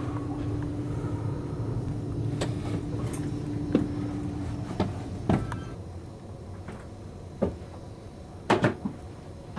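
Clicks and knocks from a cruise-ship cabin's door latch and lever handle as the door is opened and shut, over a steady low hum that drops away about halfway through. The loudest sound is a quick cluster of knocks near the end, a door banging shut.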